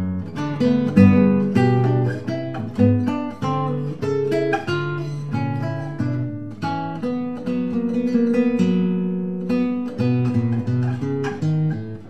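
Background music: an acoustic guitar playing a stream of plucked notes and chords.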